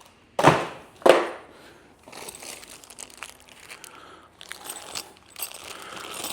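Two loud thumps close together, then a stretch of rustling and crinkling as cardboard and plastic packaging are handled while unpacking.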